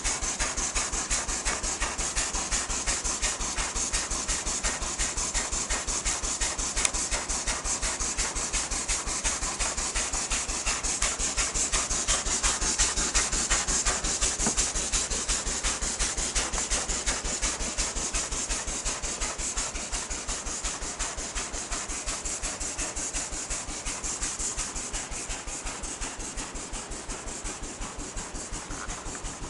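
Nearly 100-year-old Peerless size K steam engine running steadily, its exhaust chuffing in a quick, even rhythm of several beats a second over a steady hiss of steam. It grows somewhat quieter over the second half.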